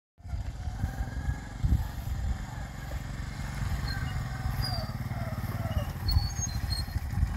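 Small commuter motorcycle engine running steadily as the bike is ridden slowly up and brought to a stop.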